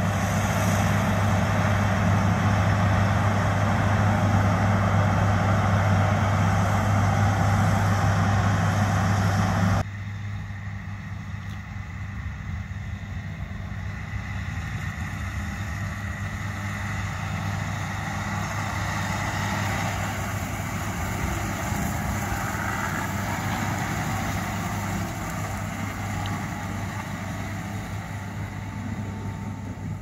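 John Deere S790 combine harvester running while harvesting wheat: a steady, loud low engine drone with broad threshing noise over it. About ten seconds in it drops away suddenly to a quieter steady engine drone as a John Deere tractor pulls a grain trailer across the stubble.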